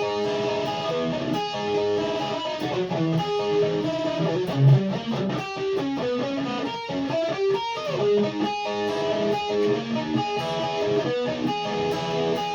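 Music played on electric guitar: held notes and chords ringing over each other, with a single low thump about four and a half seconds in.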